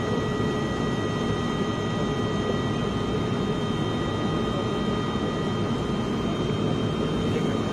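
Steady engine and airflow drone inside an airliner's cabin on its approach to landing, with a few steady high tones running over the noise.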